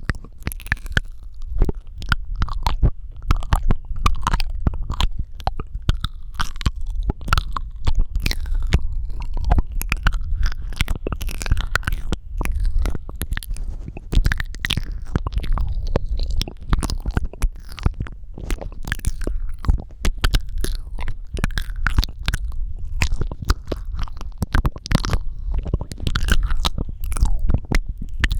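Wet mouth sounds made close to a sensitive microphone: rapid, dense clicks, pops and smacks of lips and tongue, over a low rumble.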